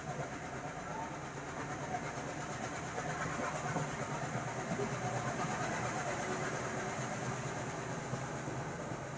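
Passenger train in motion: the steady running noise of the coaches rolling along the track, swelling slightly midway.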